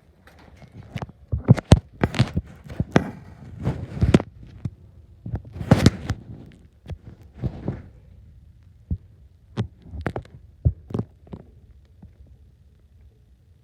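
A run of irregular soft thumps and knocks, dense in the first eight seconds and sparser after, with no bird call among them.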